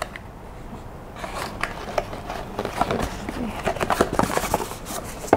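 Unboxed accessories and packaging being handled: scattered clicks, taps and light rustling, busiest from about three to four and a half seconds in.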